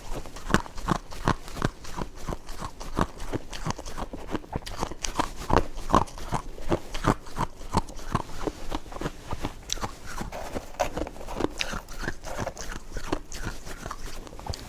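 Snow ice from a fridge being bitten and chewed, a fast irregular series of crisp crunches, several each second.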